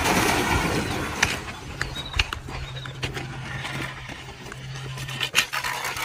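A steady low machine hum with scattered scuffs and sharp clicks, the loudest clicks about five and a half seconds in.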